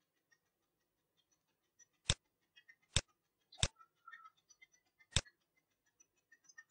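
Computer mouse button clicks: three sharp clicks less than a second apart, starting about two seconds in, then a fourth about a second and a half later.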